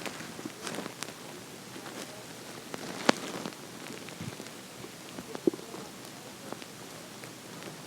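Hungry human stomach gurgling: scattered small pops and bubbly gurgles, with a sharp click about three seconds in and a short squeak about five and a half seconds in.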